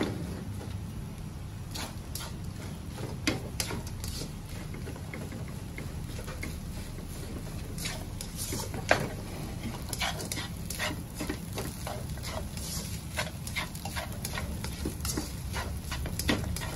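Spatula scraping and tapping against a non-stick wok as fried rice is stir-fried, in irregular clicks and scrapes, with a steady low hum underneath.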